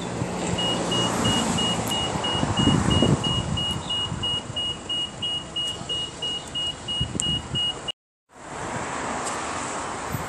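A car running close by while a high electronic beeper sounds in rapid, evenly spaced beeps. The beeping cuts off suddenly about eight seconds in.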